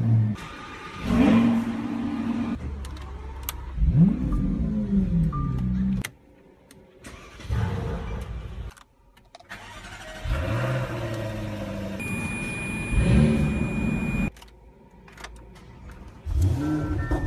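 A run of different high-performance car engines starting one after another, among them a Mercedes-AMG and an Audi RS7. Each catches with a quick rev flare that rises and falls, settles briefly, then cuts to the next car. Short dashboard chime tones sound between some of the starts.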